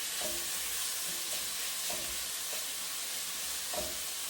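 Pork slices and carrot sizzling in hot oil in a stir-fry pan, a steady hiss, with a couple of light knocks about two seconds in and near the end.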